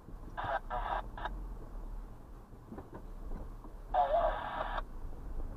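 Radio scanner sounding in short, clipped transmissions with a narrow tinny sound: three quick bursts in the first second and a half and a longer one about four seconds in, over a low steady rumble.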